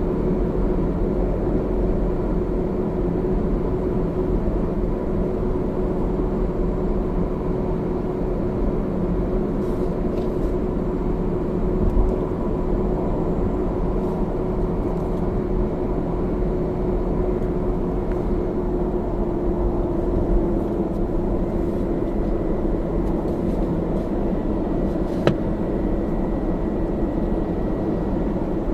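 Toyota Camry AVV50 driving with steady road noise and a faint, steady hum from the left front, which a shop diagnosed as an age-worn drive-shaft bearing after about 190,000 km. The hum drops slightly in pitch about two-thirds of the way through, and there is a single sharp click near the end.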